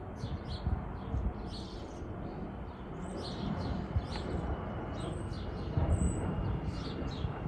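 Small birds chirping again and again over a low, uneven rumble from a jet airliner, an Airbus A220-100, flying high overhead.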